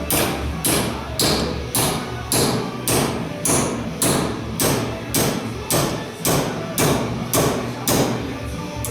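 Hammer striking a steel rod clamped in a vise, bending it over to a right angle: steady, evenly spaced blows about two a second.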